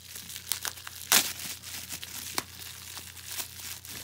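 Plastic bubble wrap crinkling and crackling as it is handled, with scattered sharp crackles, the loudest about a second in.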